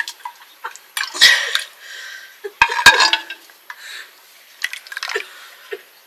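Metal cooking pots and utensils clanking and scraping: two loud, ringing clanks, about a second in and near three seconds in, with small soft knocks between.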